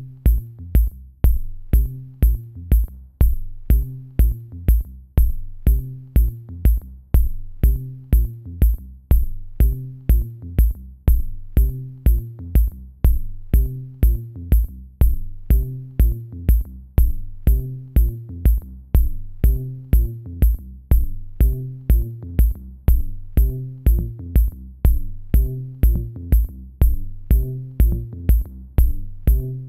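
Electronic background music with a steady drum-machine beat, about two beats a second, over a repeating low bass line.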